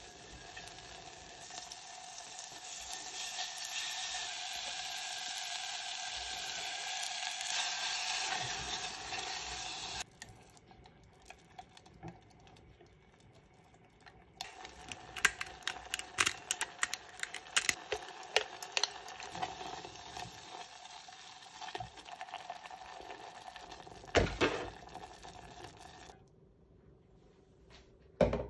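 Butter sizzling in a saucepan over the gas flame as a silicone spatula stirs it, a steady hiss that stops abruptly about ten seconds in. After a short lull, a thick Greek-yogurt sauce is stirred in the pan, the spatula scraping and clicking against the pot, with one louder knock.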